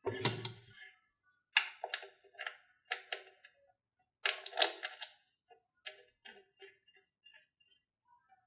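Bolt being screwed into the metal mounting plate under a swivel-chair seat: a knock with a low thud, then a run of uneven metallic clicks and ticks that thin out towards the end.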